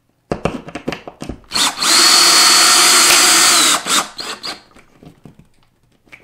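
Cordless drill driving a wood screw through a metal L bracket into a drywall anchor. A few clicks and knocks come first, then the motor runs steadily with a high whine for about two seconds, followed by a couple of short bursts on the trigger.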